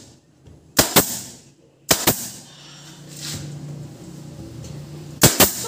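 Pneumatic upholstery staple gun firing staples into a seat frame: three sharp double cracks, about a second in, about two seconds in, and near the end.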